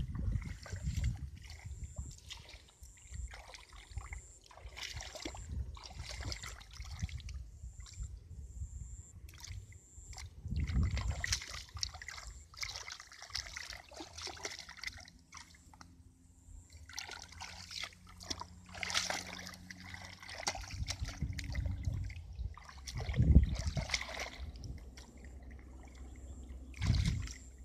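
Hands and legs sloshing and splashing through shallow muddy water, groping in the mud in irregular bursts, with one louder splash near the end.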